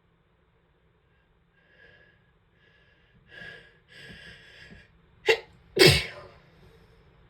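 A person's wet sneeze: a run of breathy inhales that grow louder, then two sharp explosive sneezes about half a second apart, the second the louder.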